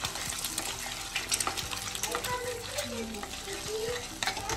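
Scrambled eggs sizzling in a pan of olive oil as they are stirred, with scattered light clicks and scrapes of the utensil against the pan.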